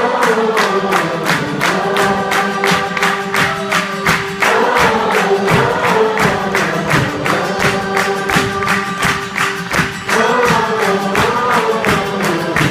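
Live rock band playing over a steady drum beat while a crowd of voices sings the melody along with it.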